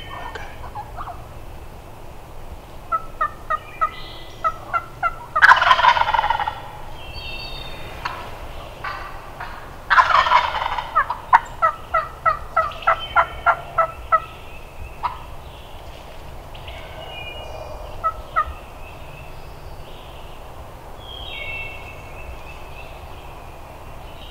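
Wild turkey gobbler gobbling twice, about five and ten seconds in. Runs of short, evenly repeated yelping notes come before and after each gobble, with a few more scattered later.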